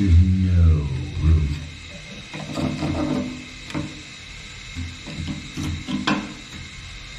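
A knife blade prying a bathtub drain in its hole, making strained creaks and scrapes. The loudest comes right at the start, falling in pitch, and weaker ones follow about two and a half and five and a half seconds in.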